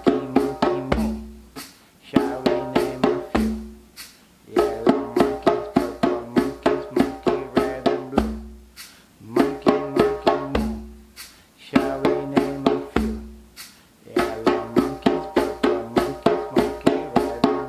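Toca djembe played with bare hands in short phrases of quick high tone strokes, each phrase ending on a deep bass stroke, with short pauses between phrases. A pitched backing melody plays along with the drum.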